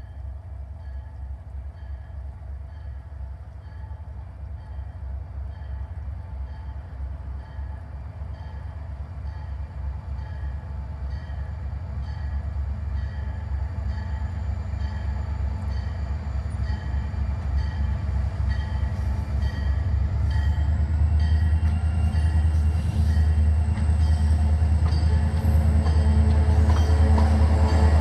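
Grade-crossing warning bell dinging in a steady rhythm while an approaching Vermont Railway diesel locomotive's low engine rumble grows steadily louder, the locomotive reaching the crossing near the end.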